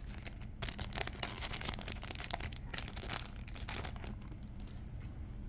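Foil wrapper of a Topps Chrome baseball card pack being torn open and crinkled by hand: a quick run of small crackles that thins out after about four seconds.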